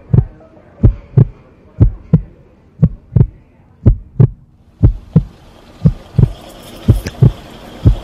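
Heartbeat sound effect: paired low thumps, lub-dub, about once a second. From about five seconds in, a steady hiss of steam from the espresso machine comes in under it.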